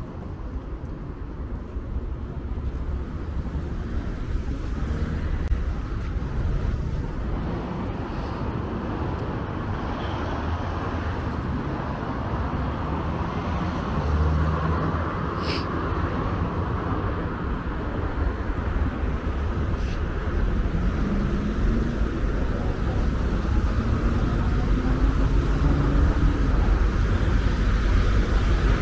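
Road traffic passing, a steady rumble of car engines and tyres that grows louder toward the end. In the second half one vehicle's engine note rises as it accelerates, and there is a single sharp click about halfway through.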